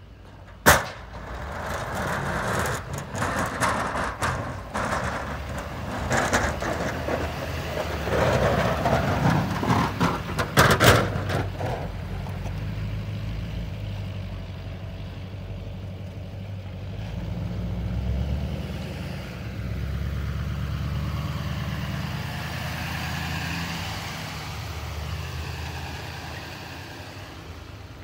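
Snow-plow pickup truck working a snowy lot. For the first part there is scraping and crunching of snow with two sharp bangs, one right at the start and one about eleven seconds in. After that the truck's engine runs steadily, with a whine that rises and falls in the second half.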